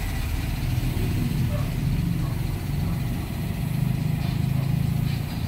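An engine idling: a steady low rumble that swells a little midway.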